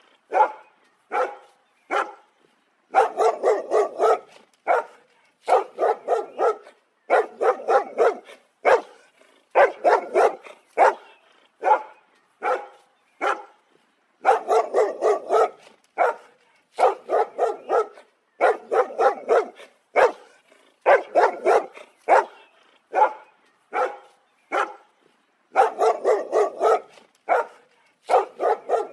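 Dog barking in repeated volleys of several quick, sharp barks, each volley cut off by a brief gap of dead silence before the next.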